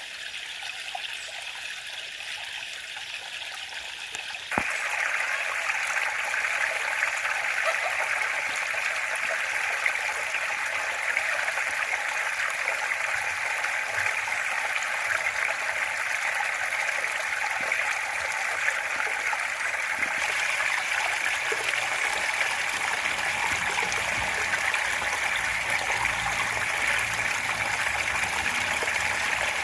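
Steady rain falling, an even hiss with no pauses that gets louder about four and a half seconds in.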